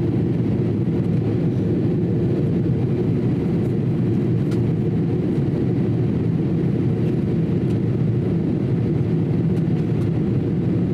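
Steady cabin noise of a Boeing 787-8 airliner in flight: a low, even rush of engines and airflow heard from a window seat.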